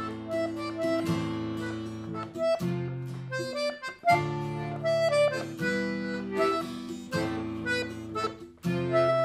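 A diatonic accordion and a guitar playing a waltz at a quick tempo. The accordion carries the melody over regular guitar strums.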